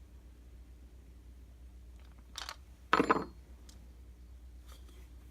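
Small metal parts and tools being handled during the felling-dog bolt-up: a light click a little past two seconds in, then a short, sharp clatter about three seconds in.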